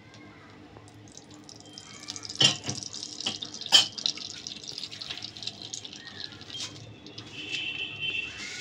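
Hot oil crackling and sizzling in a kadai as freshly added oil heats up with the leftovers from frying shrimp. The sizzle builds after about two seconds, with two sharp pops.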